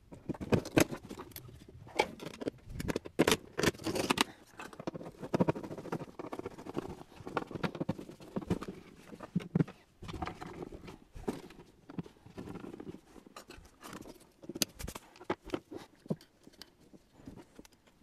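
Irregular knocks, taps and clicks with some scraping and rustling, from a diesel air heater being handled and fitted into a plywood stand.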